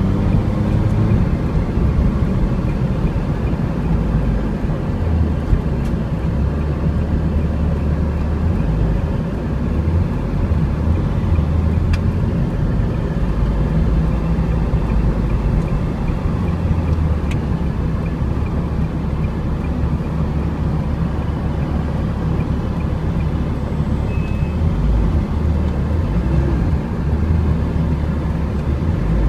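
Car engine and road noise heard from inside the cabin as the car drives slowly: a steady low rumble whose pitch shifts now and then.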